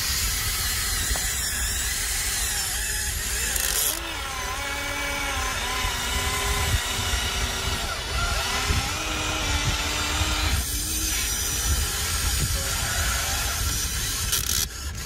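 Huina 1593 RC excavator's electric motors whining as the boom and bucket work, the pitch rising and falling and stopping and starting with each movement, over a low steady rumble.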